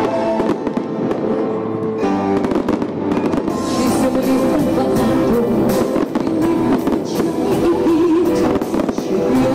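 A fireworks salute going off in a string of bangs and crackles, busiest from a few seconds in, over loud music that plays throughout.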